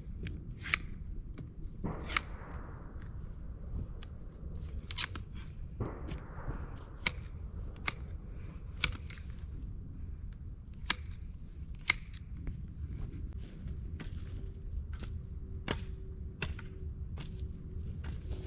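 Irregular sharp crunches and clicks of dirt and twigs being disturbed on a dirt trail, with a few longer scrapes and a steady low rumble underneath.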